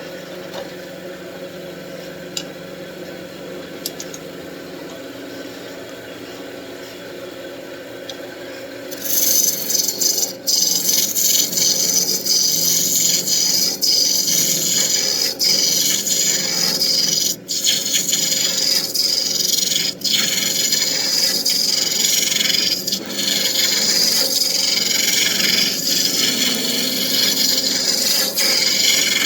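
Wood lathe running with a steady motor hum; about nine seconds in, a tool bites into the spinning wooden wand blank and a loud, hissing cutting sound starts, broken a few times by short gaps as the tool lifts off the wood.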